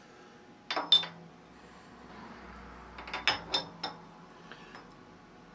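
Steel parallel strips clinking against the jaws of a milling-machine vise as they are set in place: two sharp metallic clinks about a second in, then a quick run of four or five lighter clinks around three seconds in.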